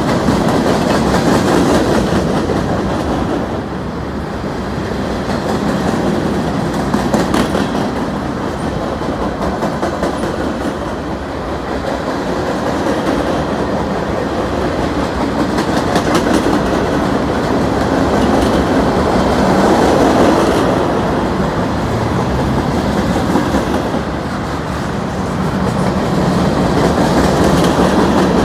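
Freight cars of a CN mixed freight train rolling steadily past: the continuous rumble of steel wheels on rail, swelling and dipping as tank cars and stacked container well cars go by, with occasional sharp clicks.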